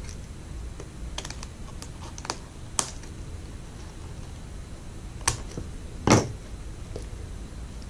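Scissors snipping the ends of a wire-edged ribbon bow, with handling of the ribbon: a scattering of short, sharp clicks, the loudest a little after five seconds and around six seconds in.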